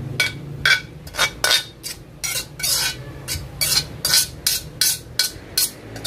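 A utensil scraping and clinking against a pan in quick repeated strokes, about two or three a second, as the cooked pork heart stir-fry is scooped out.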